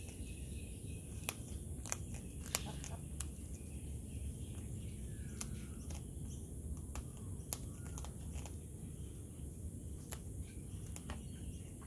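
Cockatoo crunching a cracker biscuit held in its foot: sharp, irregular crunches every second or so over a low background rumble.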